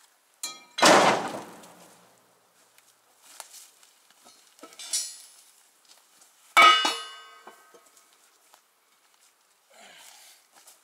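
Heavy pieces of scrap iron thrown into a truck's steel bed: two loud clanging crashes, about a second and six and a half seconds in, the second ringing on briefly, with a lighter metal clank between them.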